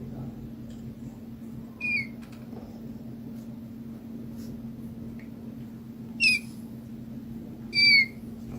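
Three short, high squeaks, each falling slightly in pitch: one about two seconds in and two near the end, over a steady low hum.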